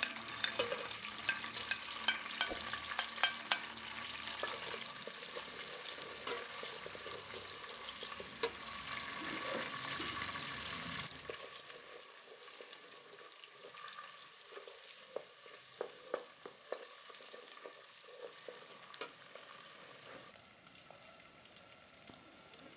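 Sliced onions sizzling and crackling in hot palm oil in a saucepan. About eleven seconds in the sizzling drops suddenly to a quieter fry, with scattered clicks of a wooden spoon stirring the pot.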